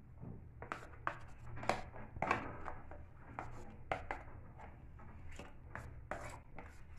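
A spoon scraping and knocking against a butter container while scooping out soft butter, in irregular short scrapes and clicks.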